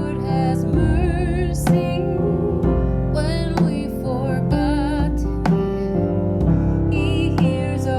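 Music: a singer with vibrato, accompanied by piano, with chords struck about once a second.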